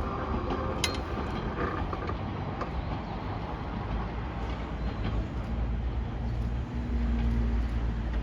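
103-series electric train rolling slowly through a level crossing: a steady low rumble from the wheels and running gear, with scattered creaks and clicks. A sharp click comes about a second in, and the rumble grows heavier near the end.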